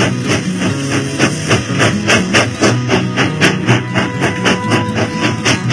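Background music with a fast steady beat.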